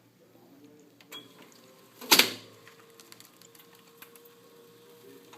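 GBC Ultima 65 laminator roll giving one loud clunk about two seconds in, the sign of laminating film stuck to the roll, with a lighter click a second before it. A faint steady hum follows the clunk.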